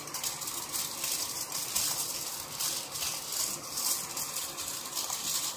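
Aluminium foil crinkling and rustling as it is wrapped and pressed by hand around a food roll, in an irregular run of small crackles.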